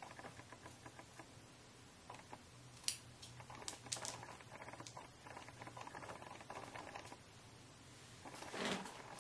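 Scissors snipping through the lace of a wig cap: faint, irregular small clicks, with a few sharper snips about three and four seconds in.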